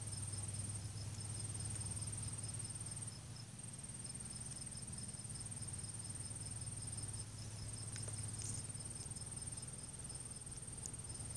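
Insects trilling steadily in a high continuous tone, with a second, evenly pulsing chirp a little lower, over a low steady hum.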